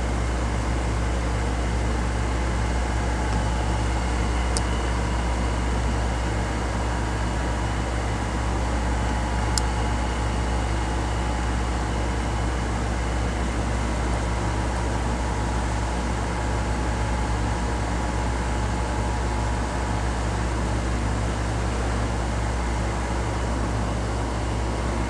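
Steady mechanical hum, like an electric fan or air conditioner running: a strong low drone with a few faint steady whines above it. Two faint clicks come about five and ten seconds in.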